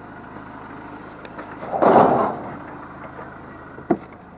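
A vehicle engine idling steadily. About two seconds in there is a loud, short clattering burst, and near the end a single sharp knock.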